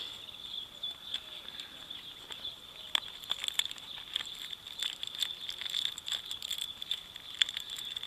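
A steady, high insect trill runs throughout. From about three seconds in come many small clicks and crackles as hands handle and open a leather belt pouch among plastic-bagged gear.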